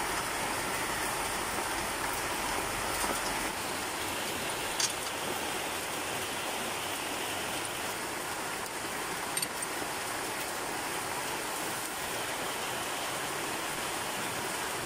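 A steady rain-like hiss, with a few faint light clicks from the brake caliper and tools being handled, about five and nine seconds in.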